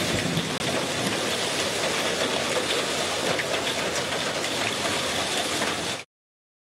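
Hailstorm: hailstones pelting down hard, a dense steady rush of noise with scattered sharp ticks of single stones striking. It cuts off suddenly about six seconds in.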